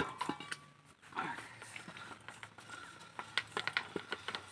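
Metal clinks and knocks of a steel pipe clamp and tools against a hand pump's iron riser pipe as the clamp is fitted, ending in a quick run of sharp taps near the end.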